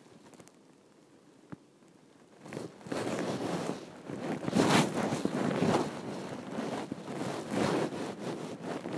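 Uneven rustling and buffeting noise on a microphone, coming in about two and a half seconds in after a near-quiet start.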